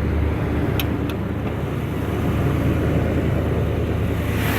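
1989 Jeep Grand Wagoneer's engine, new with new fuel injection, idling steadily and quietly, with two light clicks about a second in. A hiss grows louder near the end.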